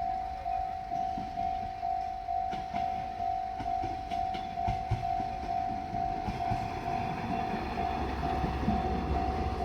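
Japanese level crossing warning bell ringing at about two strokes a second on one steady pitch, while a JR Shikoku 1500 series diesel railcar approaches, its rumble growing over the last few seconds.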